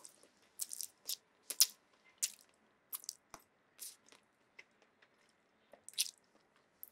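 Messy open-mouthed chewing and slurping of spaghetti in sauce: a string of short wet smacks and clicks at irregular intervals.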